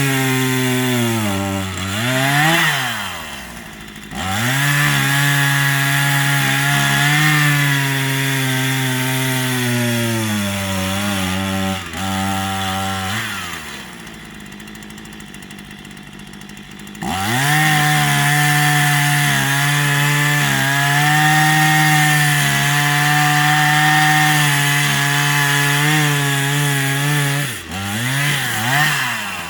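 Small two-stroke Stihl chainsaw cutting wood at full throttle, its engine pitch sagging slightly under load. Midway it drops back to idle for a few seconds, then revs up into the cut again, with quick rev-ups and drops near the start and the end.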